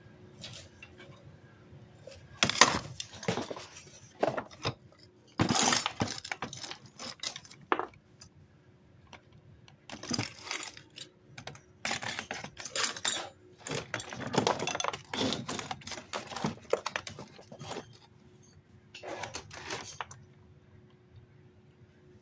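Irregular clattering and knocking of hard objects being shifted about, with handling noise as the phone recording is moved and propped back up. A faint steady hum sits underneath.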